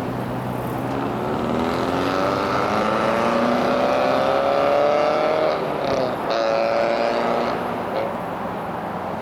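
Car engine revving up under acceleration, its pitch climbing steadily for several seconds. About six seconds in the pitch briefly dips, then holds before the engine note fades.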